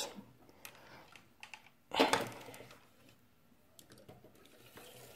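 Plastic clicking and knocking as a large, heavy plastic Transformer figure is handled and set down on a tabletop, with a louder knock about two seconds in.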